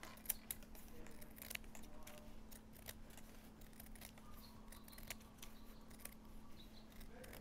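Scissors cutting lengthwise down a half-inch-wide plastic baling strap, slitting it in half: a run of short, irregular snips, faint, over a steady low hum.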